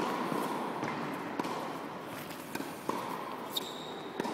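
Tennis rally on an indoor court: sharp knocks of racket hits and ball bounces about every second and a half, echoing in the hall, with a player's running footsteps.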